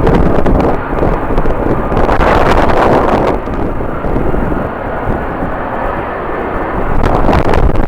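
Jet airliner engine noise mixed with strong wind buffeting the microphone, a loud rushing that swells and eases in gusts.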